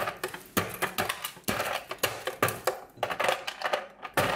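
Ice cubes clattering as they are knocked loose and handled: a quick irregular series of sharp clicks and knocks, a few each second.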